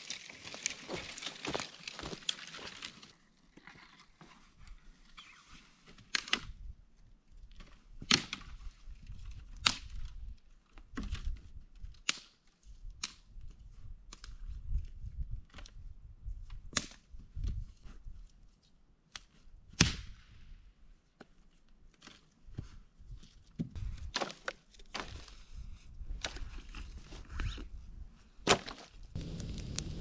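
Dry branch dragged rustling through dry grass and leaves for the first few seconds, then dry branches snapped by hand for firewood: about a dozen sharp cracks a second or two apart.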